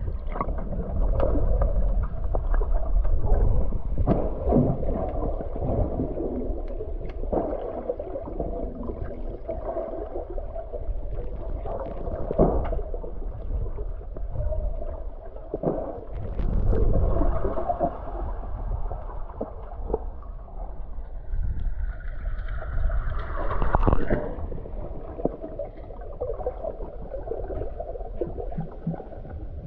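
Underwater sound heard through a submerged camera: a muffled low rumble of moving water with gurgles and scattered clicks and knocks, and a brief falling-then-rising tone a little past three-quarters of the way through.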